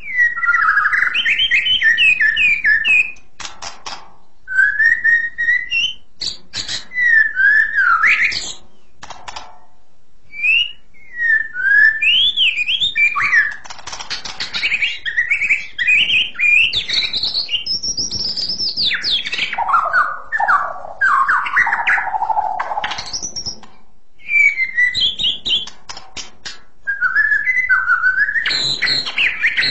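White-rumped shama (murai batu) singing a long, varied song of clear whistled phrases that rise and fall in pitch, broken by short pauses, with sharp clicks among the phrases.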